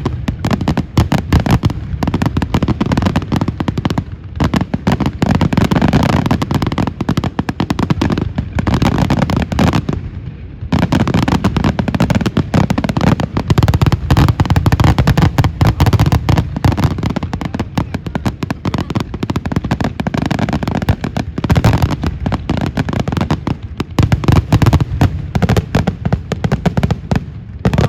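Fireworks display at a rapid, almost continuous pace, many bangs and crackles overlapping, with a brief pause about ten seconds in; likely the grand finale.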